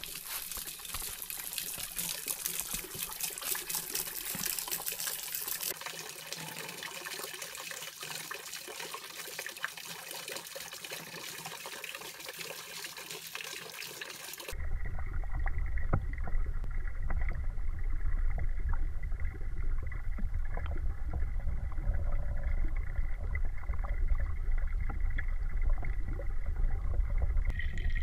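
Water trickling at a garden pond, with small ticks and splashes. About halfway through the sound turns suddenly louder, muffled and low, heard from under the water's surface.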